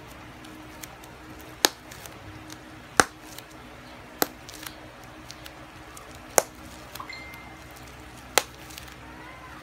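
Bubble wrap being popped by hand: five sharp, separate pops one to two seconds apart.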